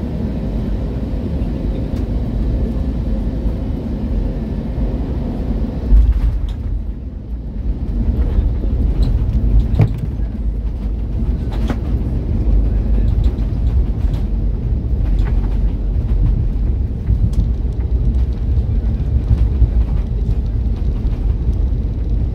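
Cabin noise inside an Airbus A320neo on landing: steady engine and airflow rumble with a faint hum, then a sudden thump about six seconds in as the wheels touch down. A heavier runway rumble with scattered rattles and knocks follows as the airliner rolls out.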